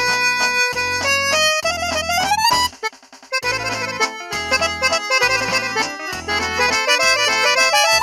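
Polyphonic ringtone of an LG LV2300 (Cyon) flip phone: a quick synthesized melody over a repeating bass note, stopping briefly about three seconds in before the tune carries on.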